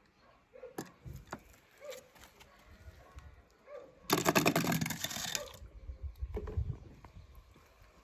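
Small die-cast toy car rolled by hand over rows of wooden blocks, giving a rattling clatter about four seconds in that lasts about a second and a half. Light clicks and taps from the toy being handled come before it.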